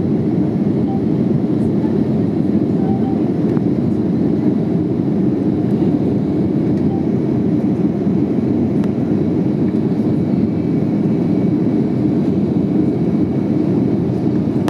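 Steady engine and airflow noise heard inside the cabin of an Airbus A321 airliner: an even, unbroken low rumble.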